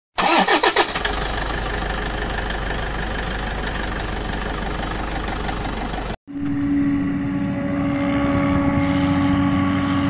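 A few quick downward sweeps, then steady engine noise; after a brief dropout about six seconds in, the steady drone of a John Deere self-propelled forage harvester chopping maize, a hum with held tones.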